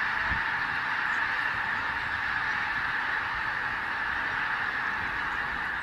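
A huge flock of pink-footed geese calling all at once in flight: a dense, unbroken chorus of honking that holds steady throughout.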